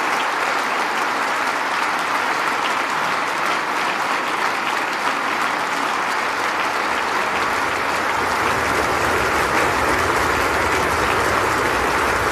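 Sustained applause from a large audience, dense and steady, growing slightly fuller in the second half.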